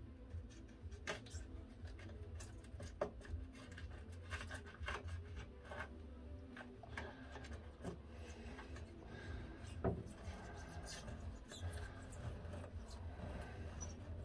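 Knife cutting along the edge of a 2 mm cork sheet, irregular scratching and crackling strokes with scattered sharp clicks, the two loudest about three and ten seconds in.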